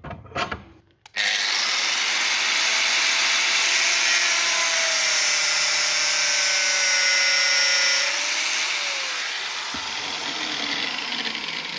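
A few clicks as the vise handle is set. Then an angle grinder with a thin cutting disc starts abruptly and cuts through a taped PTFE braided hose, with a steady whine. After about eight seconds it eases off and drops a little in pitch as the cut finishes.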